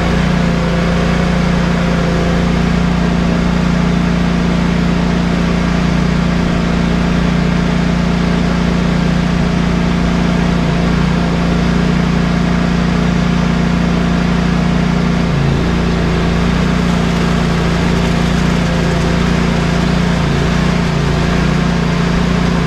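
Ready-mix concrete truck's diesel engine running with a steady, even hum, without change in pitch.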